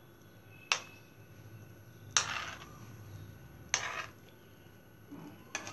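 Steel spoon clinking against a non-stick pan as it turns pieces of sweet in sugar syrup, four sharp taps about a second and a half apart.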